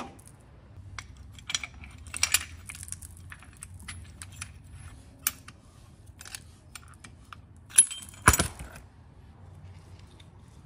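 Irregular metallic clicks and clinks of hand tools and brake caliper hardware being handled, with two louder clanks about eight seconds in.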